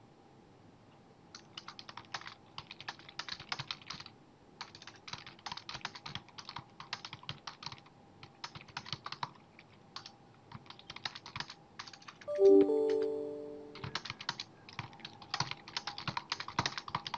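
Typing on a computer keyboard in irregular bursts of quick key clicks. About twelve seconds in, a short electronic chime of a few tones sounds and fades out over a second or so.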